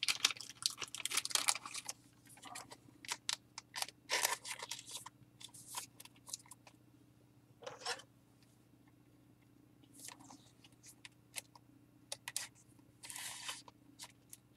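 Trading cards and their packaging being handled on a wooden table: scattered soft rustles, scrapes and light clicks, with a faint steady hum underneath.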